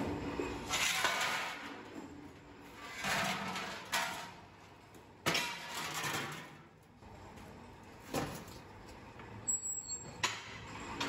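Steel sheet grinding and scraping through a plate-rolling machine in repeated swells, then two sharp metal knocks as the rolled steel shell is handled.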